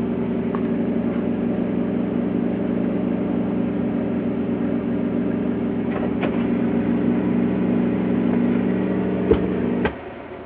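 The van's electric water pump running with a steady motor hum while it pressurises the freshly plumbed faucet line, then shutting off with a click near the end.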